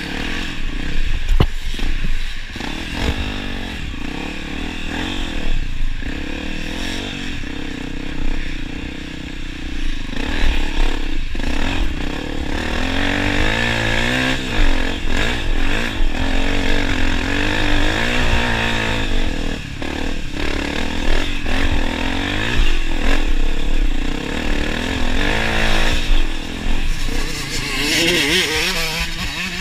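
Honda CRF250F's single-cylinder four-stroke engine under riding load, revving up and falling back again and again, with occasional knocks.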